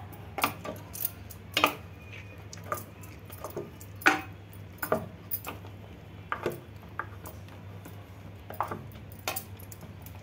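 Wooden spoon stirring a thick yogurt gravy in a metal cooking pot, knocking and scraping against the pot's sides and bottom at irregular intervals. The gravy is kept moving so the curd does not split. A faint steady low hum runs underneath.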